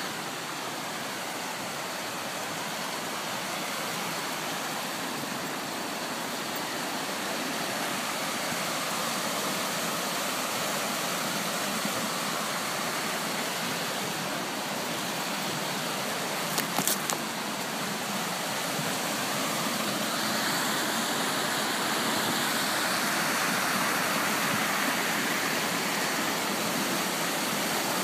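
Rushing stream water, a steady wash of noise that grows gradually louder, most of all in the last third. A few brief clicks come near the middle.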